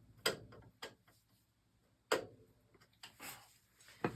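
A few sharp, irregularly spaced metallic clicks and knocks from hand tools and parts being handled and tightened on an oil burner, about five in all.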